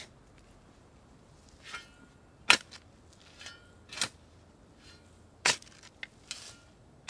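Shovel digging a planting hole in soil: a series of sharp chops and scrapes, roughly one every second, as the blade is driven in and dirt is lifted out.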